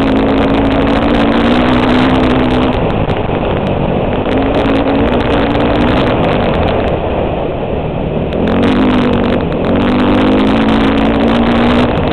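Four-stroke dirt bike engine running at speed, heard through a helmet-mounted camera with heavy wind rush over the microphone. The engine note holds steady, fading twice under the wind.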